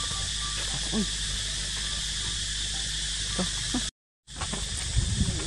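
Steady high-pitched insect drone with a few short, faint calls. The sound cuts out completely for a moment about four seconds in.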